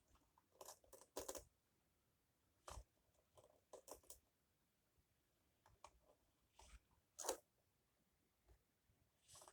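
Faint handling sounds from the vacuum cleaner's parts: about nine short, scattered scrapes and clicks with near quiet between them, the loudest about three quarters of the way through.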